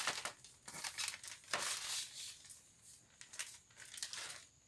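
Plastic packaging crinkling in several irregular bursts as a white plastic courier mailer and the clear plastic bag around a pair of work pants are handled and pulled apart.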